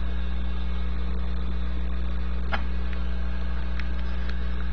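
Steady low hum from an Atten 8586 SMD rework station, its hot-air handle's built-in blower fan running, with one faint click a little past halfway.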